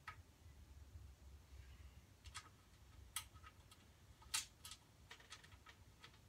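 Faint, irregular clicks of small metal hardware (washers, nut and bolt) being handled and fitted to a caster bracket, the sharpest about three and four and a half seconds in.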